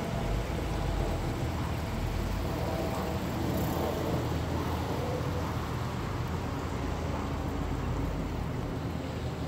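Steady street traffic noise with a low rumble of passing and idling cars.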